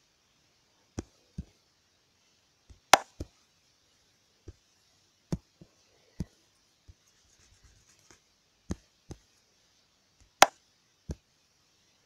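Irregular sharp taps and knocks on a tablet touchscreen, about fifteen short clicks at uneven intervals with a few soft scuffs between them, two of them much louder than the rest, over a faint steady hiss.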